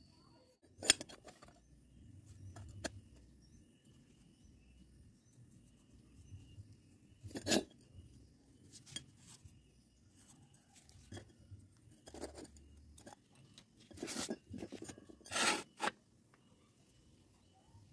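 Steel pipe pieces and square tube knocking and clinking against each other as they are handled and set down, in a handful of separate knocks, the loudest about a second in.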